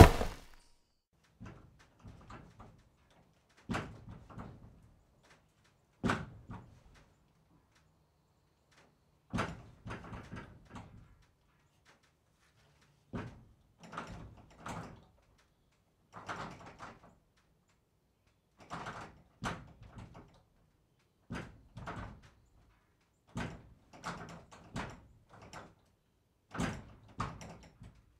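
A series of short knocking, clattering impacts: a brief cluster of several knocks every two to three seconds, with silence between.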